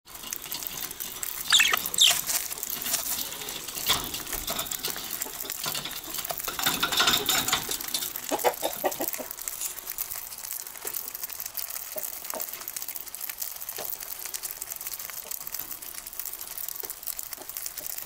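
Budgerigars cracking and husking seeds in their beaks: a constant fine crackle of tiny clicks, with short bird chirps and chatter over it, loudest about two seconds in.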